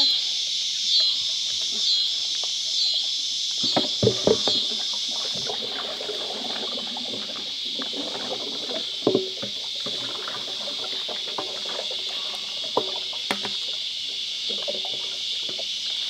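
Knocks, clicks and wet scrubbing as a removed washing-machine drum is washed with a sponge and soap bottle, the sharpest knocks about 4, 9 and 13 seconds in. Under it runs a steady high insect chorus that pulses about once a second for the first few seconds.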